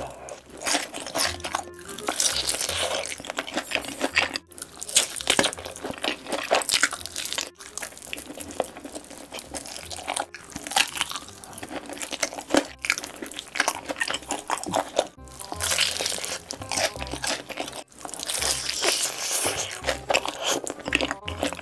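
Close-miked crunching and wet chewing as a person eats sauce-glazed fried chicken, biting through the crisp coated crust and the meat on a drumstick, over and over with short pauses.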